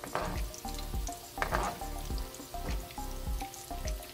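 Breaded eggplant cheese balls deep-frying in hot oil, a steady sizzling and bubbling. Background music with a steady beat plays under it.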